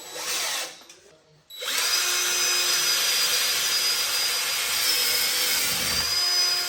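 A handheld power tool runs in a short burst at the start, then from about a second and a half in runs steadily for about five seconds with a high whine, stopping at the very end.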